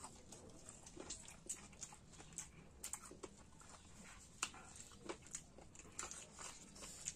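Close-up eating sounds of rice and curry: irregular wet smacks and clicks of chewing and lip smacking, several a second.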